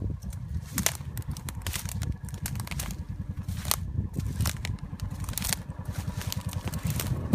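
Footsteps crunching through dry grass and brush, with brittle stems scraping and crackling against legs and the phone, many irregular sharp cracks. A low steady rumble runs underneath.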